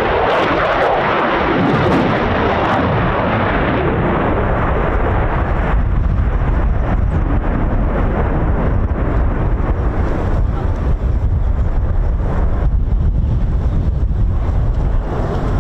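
Eurofighter Typhoon's twin EJ200 turbofan engines during a display flight: loud, continuous jet noise. About six seconds in, the higher hissing part falls away, leaving a deep rumble.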